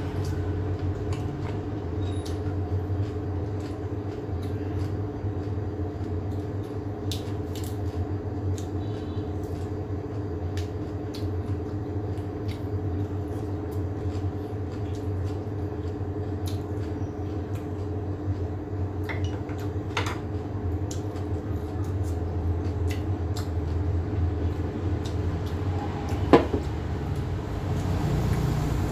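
Steady low mechanical hum with a few faint scattered clicks and taps, and one sharper click about 26 seconds in.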